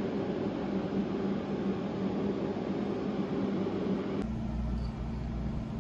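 Steady hum and hiss of a running machine, shifting to a deeper, stronger hum about four seconds in.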